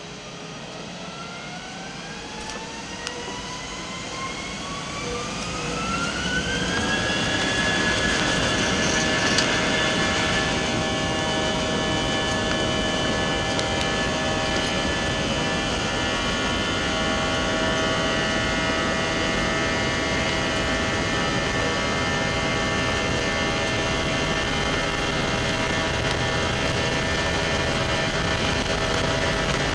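Airbus A320 jet engines heard from inside the cabin, spooling up: a whine that rises in pitch and grows louder over about seven seconds, then holds steady at high power.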